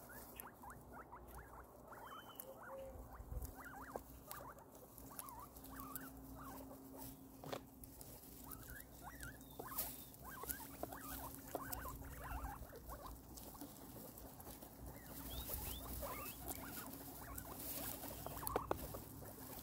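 Guinea pigs chewing fruit and vegetables: a quiet, uneven patter of quick crunching clicks and small squeaky mouth noises.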